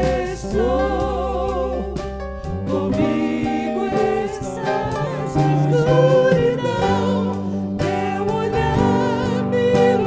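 A Christian worship song with sung vocals over a band: held bass notes and a light regular beat.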